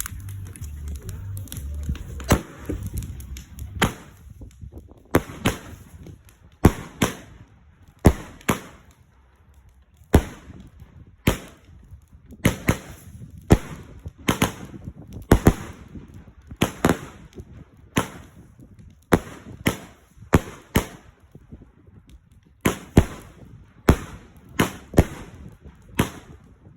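A 25-shot daylight fireworks cake firing its shots one after another: sharp bangs roughly once a second, some coming in quick pairs, about two dozen in all.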